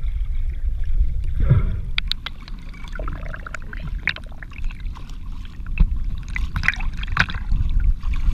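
Water against a GoPro Hero4's waterproof housing: a muffled underwater rumble, then about two seconds in the camera breaks the surface and water laps and splashes on the housing in quick crackling spatters over a steady low rumble.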